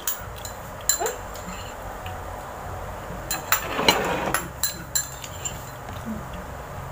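Close-up eating sounds: chewing, with a few light clicks and clinks of cutlery against dishes and a louder noisy stretch about four seconds in.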